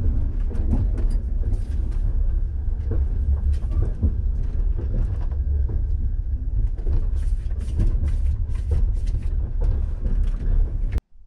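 Railway carriage noise: a steady low rumble with scattered knocks and clanks, cut off abruptly near the end.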